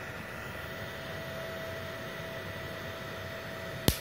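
Steady hiss and faint hum from a small inverter welder set up for scratch-start TIG, with argon flowing through the manual-valve torch. Near the end, a sharp crack as the tungsten is touched to the steel plate to strike the arc.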